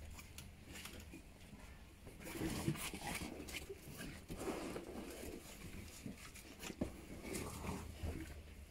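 A Presa Canario puppy and a blue blood bulldog playing: soft dog snuffling and mouthing noises with paws and bodies scuffing on a mattress, irregular and busier from about two seconds in, with a few sharp clicks.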